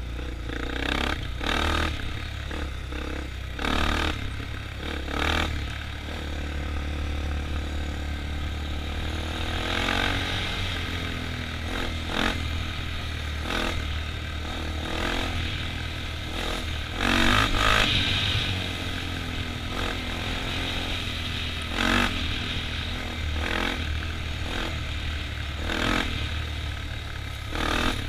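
ATV engine running as it drives over a rough dirt field track, its pitch rising and falling with the throttle. Frequent short clatters and knocks from the machine jolting over the bumps, the loudest burst a little past halfway.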